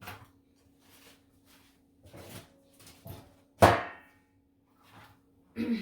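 Scattered light knocks and scrapes of a floor being wiped by hand, with one louder clank that rings briefly about three and a half seconds in.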